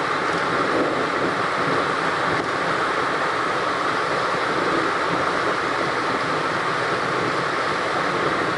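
Steady rush of churning, foaming water spilling against a concrete wall.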